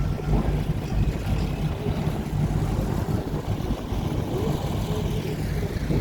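Passenger river boat's engine running steadily, a low rumble with the wash of water and air around it.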